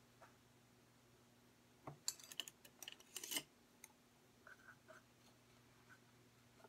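Quiet light clicks and scrapes of small objects being handled, bunched together about two seconds in, with a few fainter ticks afterwards, over a low steady hum.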